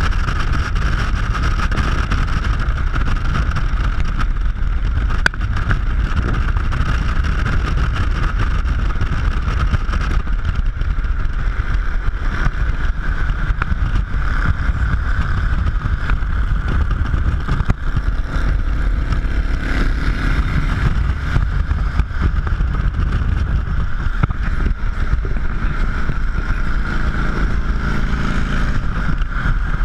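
Wind rushing over a camera mounted outside a car at highway speed, with a steady low rumble of road and engine underneath. A motorcycle engine's hum rises faintly through the noise twice in the second half.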